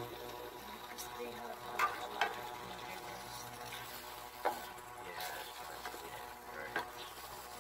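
A spatula stirring chicken in a thick, creamy tomato sauce in a non-stick frying pan, with four sharp knocks of the spatula against the pan over a faint steady hum.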